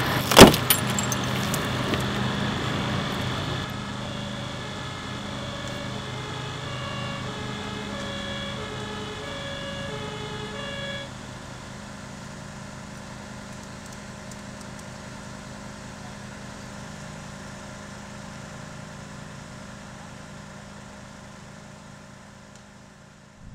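A single sharp, loud bang about half a second in, then a steady vehicle hum. From about five seconds in, a German fire-engine two-tone siren (Martinshorn) sounds its alternating high-low call for about six seconds and stops. The sound then fades out slowly.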